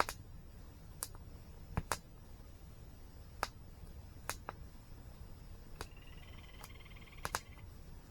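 Wood campfire crackling, with sharp pops scattered irregularly about a dozen times, over a steady low rush of the waterfall. Near the end a bird calls for about two seconds.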